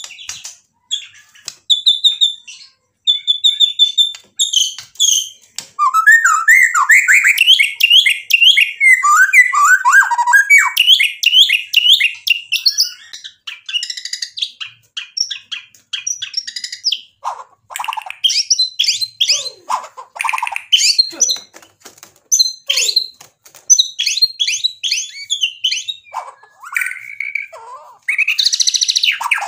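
White-rumped shama (murai batu) in full song: a few short steady whistles, then from about five seconds in a fast, varied run of changing phrases with brief pauses, a song packed with learned imitated phrases (isian).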